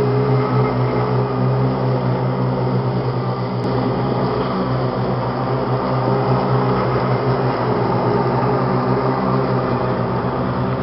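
A 1974 Avco New Idea EGT200 battery-powered GE electric garden tractor mowing long grass at slow speed, its electric motor and spinning mower deck making a steady, even hum.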